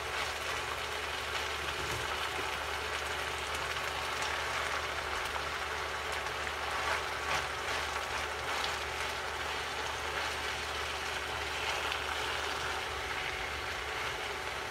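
Shredded cabbage sizzling as it is sautéed in a frying pan and tossed with a wooden spatula, with a few light scrapes and knocks of the spatula about halfway through.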